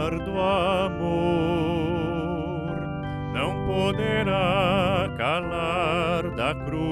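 A man and a woman singing a slow hymn with vibrato, over sustained chords from a Roland E-09 electronic keyboard. There are two short breaths between phrases, about three and five seconds in.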